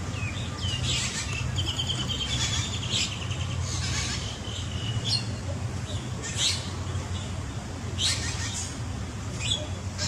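Birds chirping and calling: sharp high chirps every second or two, with a rapid trill between about one and three seconds in, over a steady low rumble.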